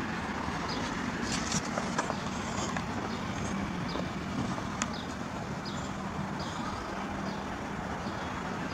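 City street traffic noise: a steady hum of passing and idling cars, with short high chirps and faint clicks over it.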